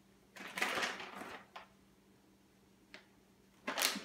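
Plastic raisin package crinkling and rattling as raisins are shaken out of it, in a few short bursts with a single click about three seconds in.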